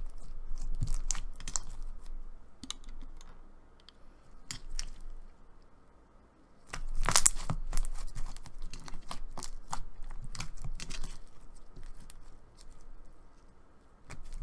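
Clear slime with mixed-in beads and charms being squeezed and stretched by hand, giving crunchy clicks and small pops in spells, thickest about seven seconds in.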